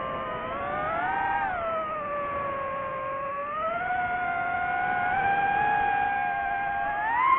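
DJI FPV drone's motors and Master Airscrew propellers whining in flight, the pitch following the throttle. It rises about a second in and drops back, climbs slowly through the middle, then jumps up sharply near the end.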